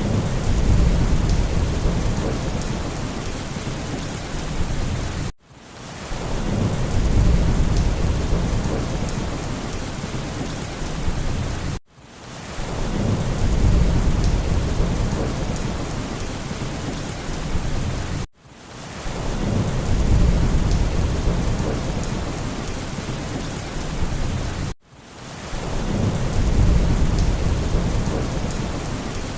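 Heavy rain hissing steadily, with a low thunder rumble that swells and fades about every six and a half seconds. Each repeat cuts off abruptly and starts again: a short rain-and-thunder recording played on a loop.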